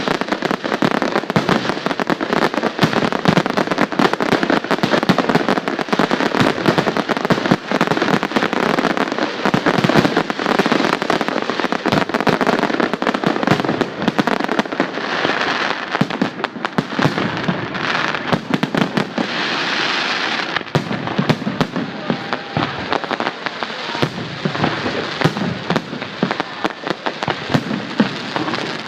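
Fireworks display: a dense, rapid barrage of shell bursts and crackling, with short hissing bursts at a few points in the middle.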